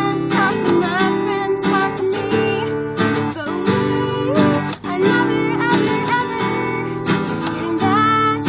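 Acoustic guitar strummed in a steady rhythm, with a woman's singing voice gliding over the chords.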